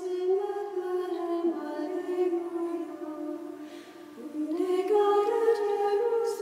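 Choral music: voices singing slow, long-held notes, the pitch stepping up about half a second in and again about four and a half seconds in.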